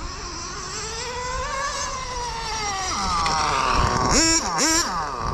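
Small .12 nitro engine of a 1/10 RC touring car buzzing at high revs, its pitch rising and falling smoothly as the car runs. About four seconds in come two sharp throttle blips close together.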